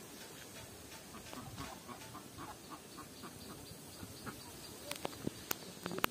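Faint clucking of domestic fowl: a run of short calls repeated several times a second. A few sharp clicks follow near the end.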